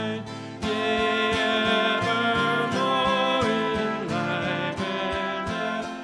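Acoustic guitar strummed in a steady rhythm, with a man singing along: a song performed live.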